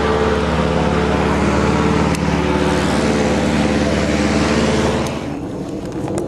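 An engine running steadily with an even, pitched hum, which breaks off sharply about five seconds in, leaving a quieter hum.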